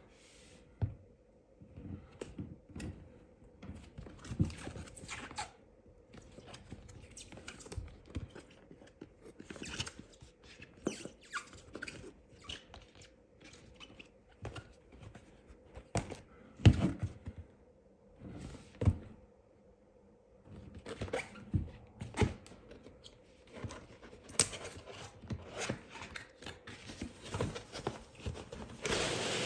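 A diecast model airliner's box and packaging being handled and opened: irregular knocks, thunks, clicks and short rustles, with the loudest thump a little past halfway.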